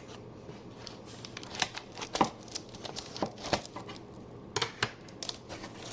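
Plant shipping packaging being pulled open by hand: irregular crinkling, tearing and sharp snaps, the loudest a couple of seconds in.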